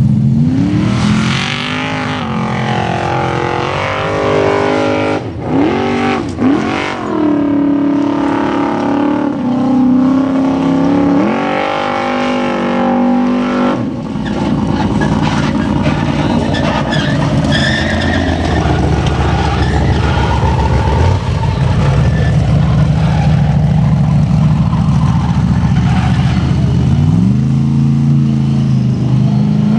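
Formula Offroad tube buggy's engine revving hard as it climbs a loose sand hill, paddle tyres churning sand. The revs rise and fall repeatedly, with two sharp drops around five to seven seconds in, then are held high and steady for a long stretch before climbing again near the end.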